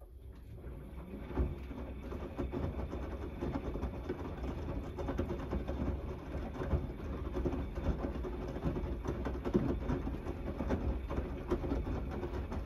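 Gorenje front-loading washing machine in the main wash of a 90° cotton cycle, its drum starting to turn: motor rumble with wet laundry tumbling and sloshing through soapy water, with irregular thuds as the load drops. The sound comes in at once and builds over the first second or two.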